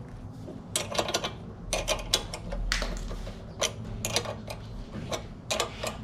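Irregular metallic clicks and clinks as a motorcycle foot peg is handled and fitted onto its welded mount, a dozen or so small knocks in uneven clusters.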